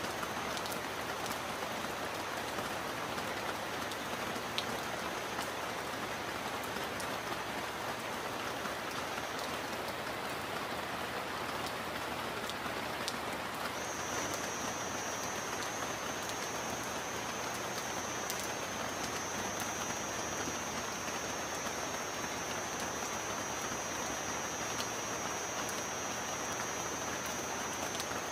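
Steady rain falling, an even hiss with scattered drop ticks. A thin, high steady tone runs faintly through the first third, drops out, and returns stronger about halfway through.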